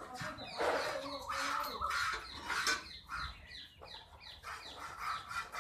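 Crows cawing over and over in short, harsh calls that fall in pitch. Mixed in is the hiss of milk squirting from a cow's teats into a metal pail as she is milked by hand.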